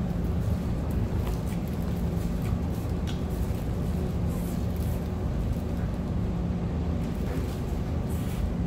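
A steady low mechanical hum throughout, with faint crunches now and then from fried chicken being chewed.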